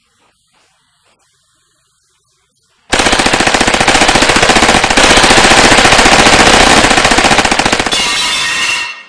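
Quiet for about three seconds, then a sudden, loud, sustained burst of rapid automatic gunfire lasting about six seconds, fading out near the end.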